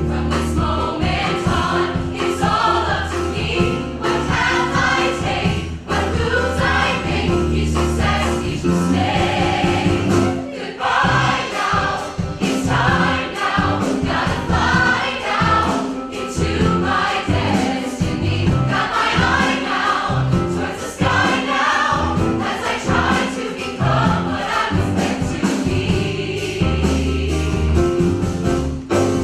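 A large mixed choir of young voices singing a gospel-style song, backed by piano, bass and drums. Held low bass notes carry the first part, and the drums take up a steady beat about ten seconds in.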